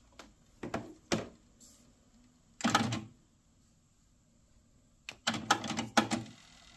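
Yamaha KX-380 cassette deck's transport mechanism clicking and clunking as its buttons are pressed: a few light clicks, a longer clunk about three seconds in, then a quick cluster of clunks near the end.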